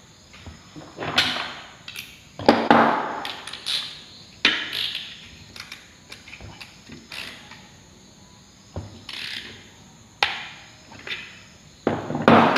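Hand tools and metal parts knocking and clattering during bench reassembly of a Suzuki WagonR integrated starter generator: several sharp knocks with smaller clicks between.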